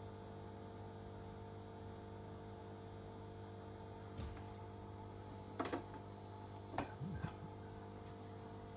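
Steady low electrical hum of running aquarium equipment. A few short clicks and knocks come in the middle of it.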